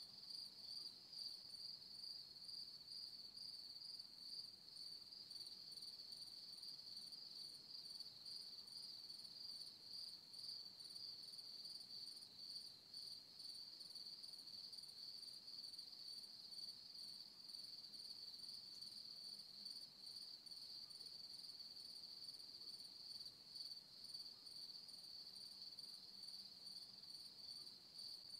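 Crickets trilling: a faint, steady, high-pitched insect chorus.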